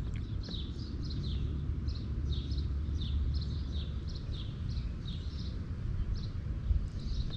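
Birds chirping steadily, a few short falling chirps each second, over a steady low rumble of wind on the microphone.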